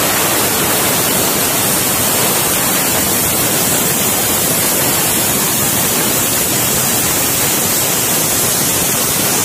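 Aluminium pressure cooker venting steam past its weight valve: a loud, steady hiss, the cooker up to full pressure.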